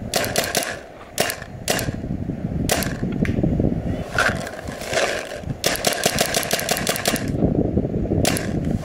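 Paintball markers firing: scattered single shots at first, then a rapid string of about a dozen shots around six to seven seconds in, and one more shot near the end.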